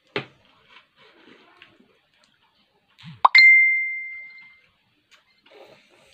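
A phone's message notification: a short rising swoop, then a single bright ding that rings and fades over about a second, about three seconds in. Just before that, near the start, comes a sharp click.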